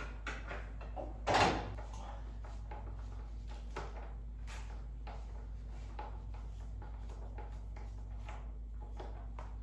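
Light, irregular clicks and knocks of hand tools on metal as the oil drain plug is worked from under a car, with one louder knock about a second and a half in, over a steady low hum.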